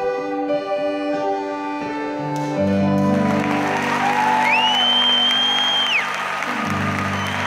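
A song ends on held chords from accordion and band. About three seconds in, audience applause swells in over the last low chord, and a whistle of cheering rises and holds for about a second and a half.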